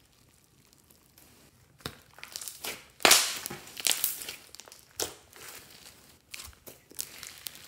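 Hands squeezing and stretching a thick glossy slime mixed with makeup and clay, giving a run of short sharp pops and clicks as air is pressed out of the folds. It starts about two seconds in and is loudest just after three seconds.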